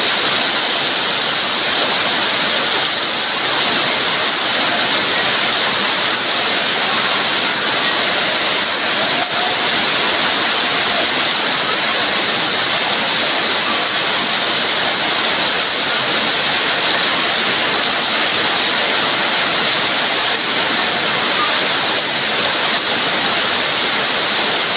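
Heavy rain pouring down steadily, a loud, even hiss with no let-up.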